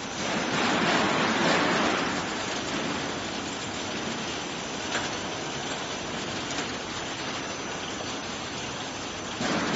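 Water spraying and splashing in a stainless-steel vegetable washing machine, its nozzle spray bars running over a mesh conveyor: a steady rushing hiss.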